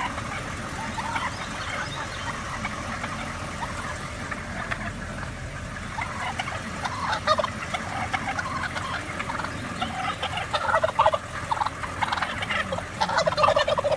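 Turkeys gobbling repeatedly in short, overlapping calls that grow busier and louder near the end.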